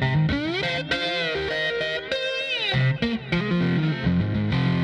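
Background music: distorted electric guitar playing notes that slide up and down over steady low bass notes.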